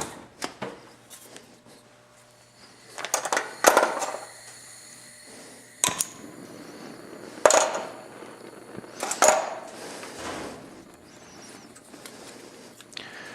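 Metal clinks and clatter of plumbing parts and tools being handled, with a few separate sharp knocks spread through.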